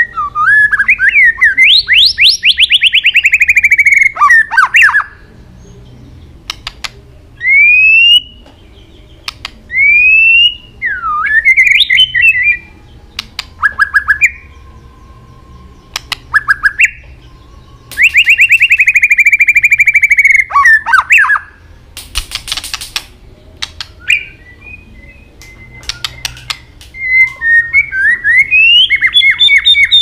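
White-rumped shama singing loud, varied phrases: clear rising and falling whistles and fast rattling trills, broken by short pauses. A quick run of sharp clicking notes comes about two-thirds of the way through.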